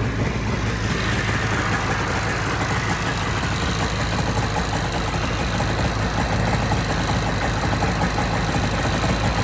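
1997 Ski-Doo Formula 500's two-stroke twin-cylinder engine idling steadily.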